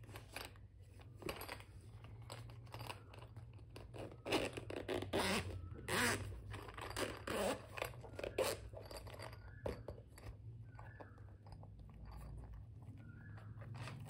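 Moulded hard-shell pencil case being handled and unzipped: a run of crackly scraping and rasping from the zipper and the stiff shell, loudest and busiest in the middle, thinning out toward the end as the case comes open.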